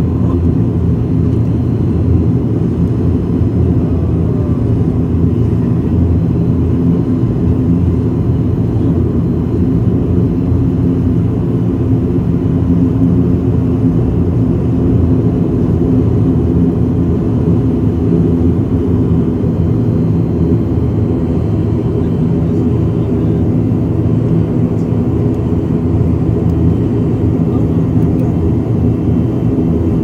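ATR twin-turboprop airliner's engines and propellers, heard from inside the cabin as a loud, steady drone with several low steady tones while the aircraft taxis.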